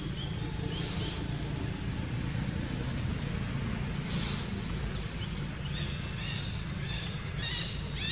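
Outdoor ambience with a steady low rumble and two brief high hisses, then, from about six seconds in, a run of short high-pitched animal calls repeating about twice a second.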